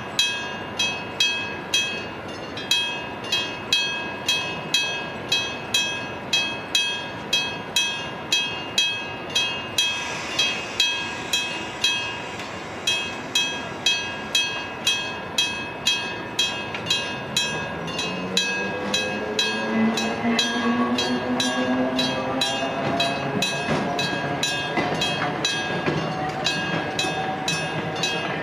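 Electric level-crossing bell ringing with steady strikes about twice a second. About two-thirds of the way in, a train's motor whine starts beneath the bell and rises slowly in pitch.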